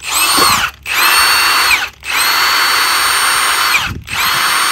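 Milwaukee M18 cordless 1/2-inch impact wrench with a brushless motor, run with no load in four short trigger pulls. Each run is a high whine that spins up quickly, holds steady and winds down, with brief gaps between; the last run is still going at the end.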